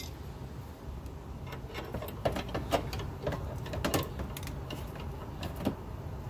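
Combination wrench working a large caliper bracket bolt on a truck's front steering knuckle: a string of light, irregular metallic clicks and taps as the wrench is reset and pulled on the bolt.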